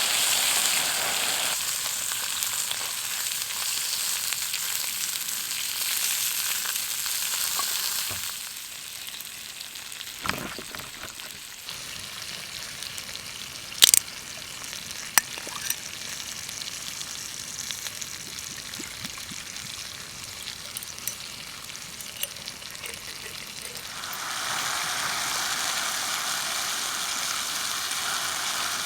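Food sizzling in a hot pan, louder at first, quieter through the middle, and louder again near the end, with a few sharp clicks partway through.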